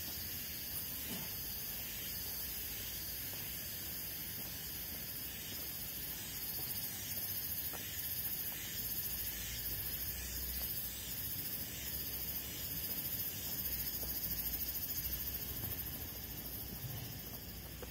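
Steady high-pitched insect chorus from the trees, with a low rumble of wind on the microphone through the middle stretch.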